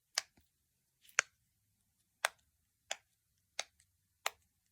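Fidget toy being clicked: a series of sharp, separate clicks at about one every two-thirds of a second.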